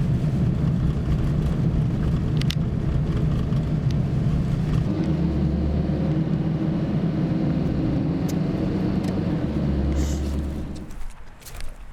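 A motor vehicle running: a steady low rumble of engine and road noise, with a deeper engine drone from about five seconds in. It dies down about eleven seconds in, leaving a few light clicks.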